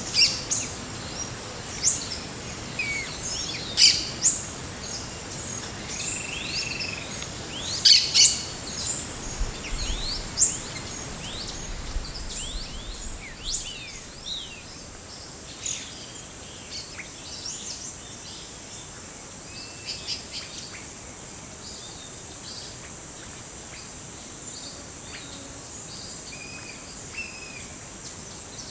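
Forest birds calling: many short chirps and whistled notes from several birds, busiest in the first half and thinning out later. A steady high-pitched buzz runs underneath and becomes continuous from about halfway.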